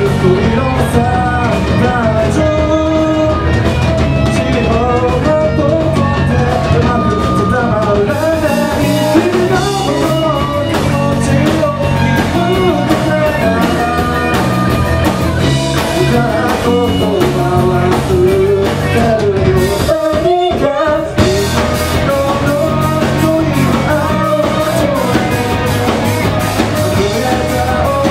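Live rock band playing a song: electric guitars, bass and drum kit with a male lead vocal. About two-thirds of the way through, the low end drops out for about a second before the full band comes back in.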